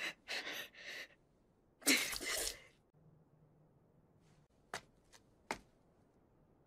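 Anime character's voice: short panting breaths, then one stronger gasping cry about two seconds in. After that it is quiet, apart from three brief clicks near the end.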